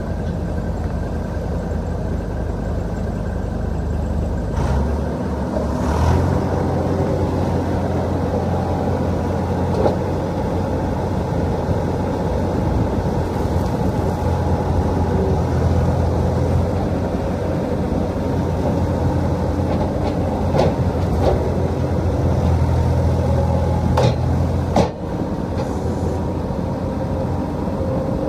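John Deere 260 skid steer's diesel engine running steadily. It speeds up about five seconds in and drops back near the end, with a few sharp clunks along the way.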